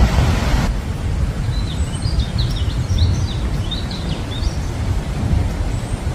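Wind buffeting the microphone with a steady low rumble; a louder rushing gust cuts off under a second in. A bird chirps a quick run of short high calls through the middle.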